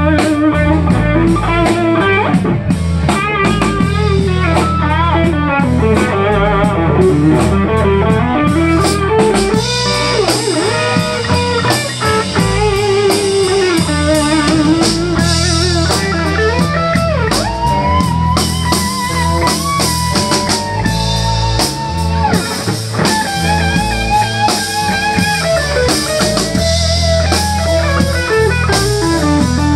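Live blues band playing: an electric guitar lead with bent, wavering notes over electric bass and a drum kit keeping a steady beat.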